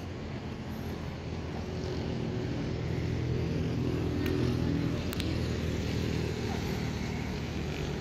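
A motor engine passing by: its low pitched hum grows louder to a peak about four to five seconds in, then eases off. A few faint clicks sound over it.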